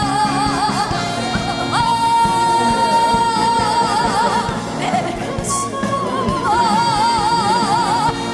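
Background music with a sung melody: long held notes with a wide, even vibrato over a steady accompaniment.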